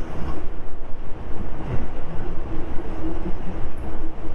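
Motorcycle on the move at speed: a steady engine tone under a heavy, continuous rumble of wind rushing over the helmet-mounted camera's microphone.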